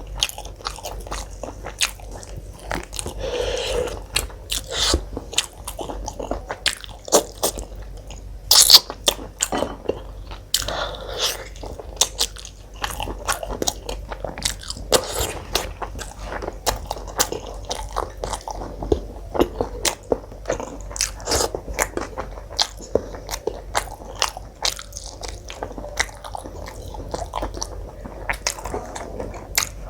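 Close-miked chewing and biting of food, many small wet clicks and crunches in an uneven stream, with one sharper, louder click about eight and a half seconds in.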